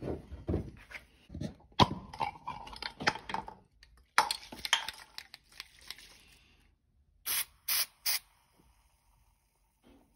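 Knocks, clinks and scraping of a steel axe head and a freshly cut hardwood handle being handled and fitted together, with one sharp knock about two seconds in. A little past the middle come three short hissing bursts in quick succession.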